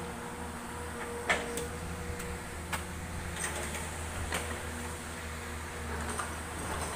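Hydraulic excavator's diesel engine running steadily with a low hum. A few sharp knocks or clanks sound over it, the loudest about a second in.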